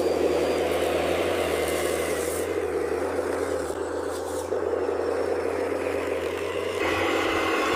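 RC construction machine running, a steady mechanical whir over a low engine-like hum, changing in tone about seven seconds in.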